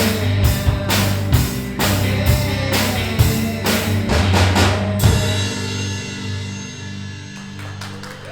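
Live band music with a drum kit and bass playing a steady beat. About five seconds in, the drums stop on a final hit and the last chord rings out and fades as the song ends.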